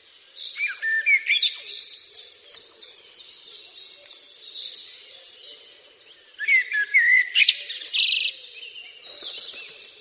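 Songbirds singing: two loud, quickly varying song phrases, one about half a second in and another about six and a half seconds in, with a series of short high notes repeating about three times a second between them.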